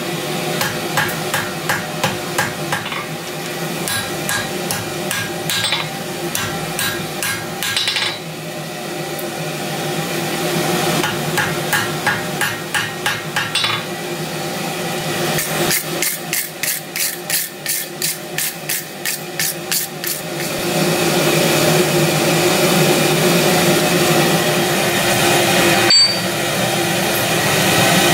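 Blacksmith's hand hammer striking red-hot round steel on an anvil while forging the bit of a pair of tongs, about three blows a second in runs of several seconds with short pauses. The hammering stops about two-thirds of the way through, and a steady hum that runs underneath grows louder.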